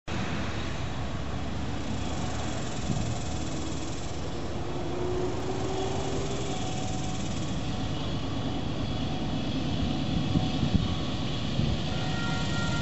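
Steady low rumble of a distant approaching freight train, a Union Pacific locomotive and its consist still far down the track, with faint thin tones entering near the end.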